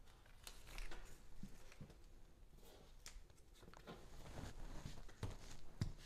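Stiff cardstock cards being handled and pressed flat against a wall by hand: light rustling and scraping with a few soft thuds, the strongest near the end.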